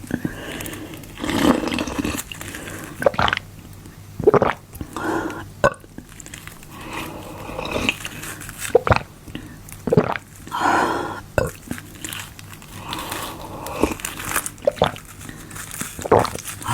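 Close-up biting and chewing of ice made from frozen diluted Fanta: repeated sharp crunches as pieces are bitten off and crushed, with wet mouth and chewing sounds in between.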